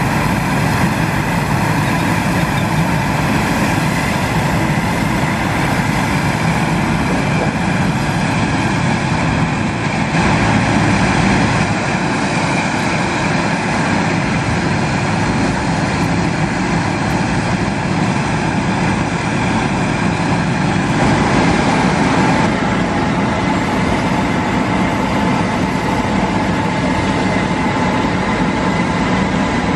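Steady drone of parked airliners and ground service equipment on an airport apron at night: a low rumble with a constant high whine over it.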